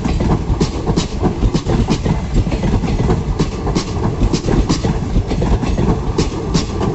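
Coaches of an express passenger train rolling past at speed: a steady heavy rumble with the wheels clacking over rail joints many times.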